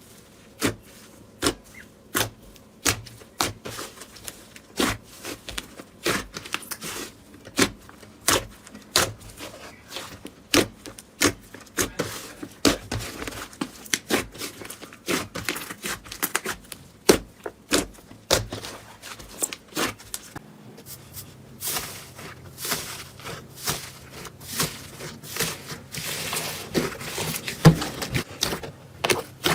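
Slime being squeezed and poked by hand, making a run of sharp pops and clicks about once or twice a second.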